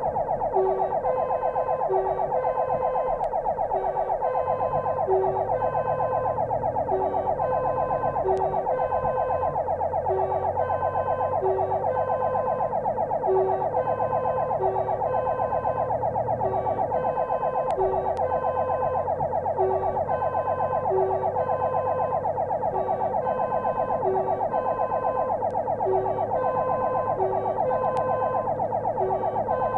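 Fire engine's siren sounding without a break in a fast warble while the truck drives on a call, heard from inside the cab with the engine running underneath. A short lower tone repeats about every second and a half.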